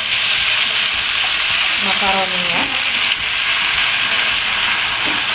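Wet boiled macaroni sizzling in melted butter and garlic in a non-stick frying pan: a loud, steady hiss as the water on the pasta hits the hot fat, while it is stirred.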